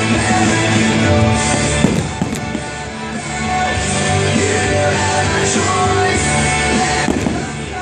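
Rock music playing loudly and steadily, with a few sharp cracks from firework bursts about two seconds in and again near the end.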